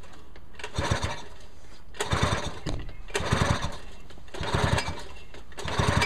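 Nissan 3.5 hp two-stroke outboard motor being pull-started: the recoil starter yanked five times in a row, about one and a quarter seconds apart, the engine turning over on each pull without catching.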